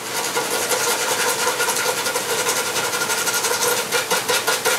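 Small brush scrubbing rapidly back and forth over a circuit board, cleaning solder flux off a freshly soldered surface-mount resistor with rubbing alcohol. A faint steady hum runs underneath.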